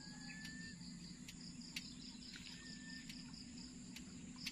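Evening insect chorus, faint: a steady, high-pitched pulsing trill of crickets and other insects, with two short thin whistles, one at the start and one in the middle.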